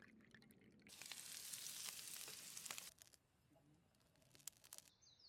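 A soft hiss with small crackles for about two seconds, starting about a second in, then near silence with a few faint ticks.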